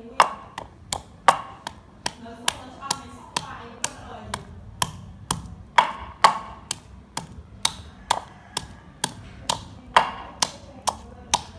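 Wooden pestle pounding garlic cloves and red chillies in a wooden mortar: a steady run of wooden knocks, about two and a half a second.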